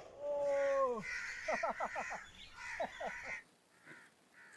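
Crow-like birds calling: one drawn-out call that drops in pitch at its end, then a quick run of short falling caws about a second and a half in and a few more near three seconds. The calls die away in the last second.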